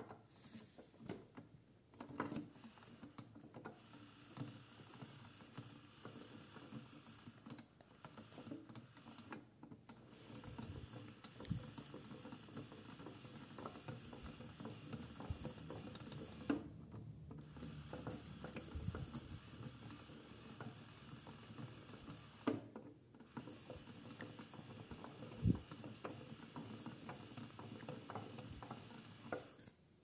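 Toy AEG Lavamat washing machine running a wash: the drum turns with water and a cloth sloshing inside, over a steady faint high whine and frequent small gear clicks and knocks. The whine drops out briefly a few times.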